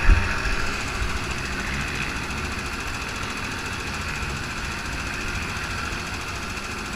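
A small engine or motor running steadily, with one sharp thump right at the start.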